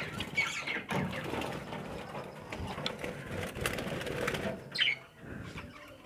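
Budgerigars in a wire-mesh aviary flapping their wings, with a couple of short chirps and a few sharp clicks.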